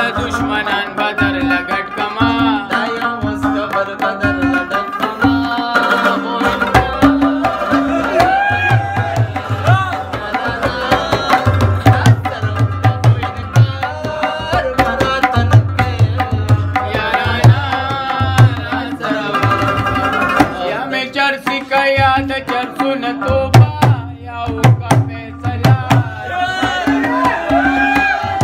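Tabla played in a fast, continuous rhythm, with deep bass-drum strokes coming in and out, under a plucked rabab melody.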